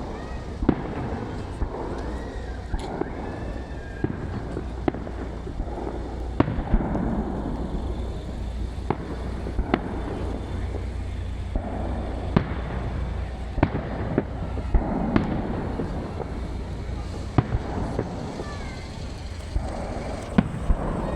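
Fireworks display bursting overhead in a run of sharp bangs, irregularly spaced at roughly one a second.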